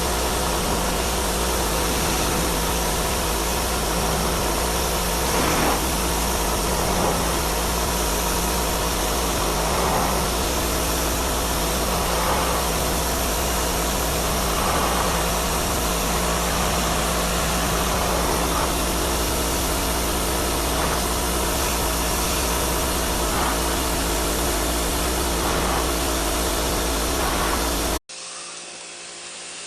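Pressure washer running: a steady engine hum under the loud, even hiss of the high-pressure water spray. Near the end it cuts off abruptly to a quieter spray.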